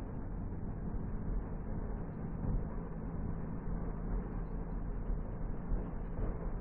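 Engine and road noise of a car in motion, heard from inside the cabin: a steady low hum.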